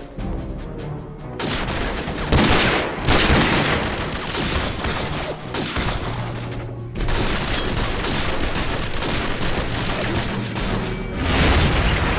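Rapid bursts of gunfire, dense and continuous, over background music; the firing breaks off briefly about seven seconds in.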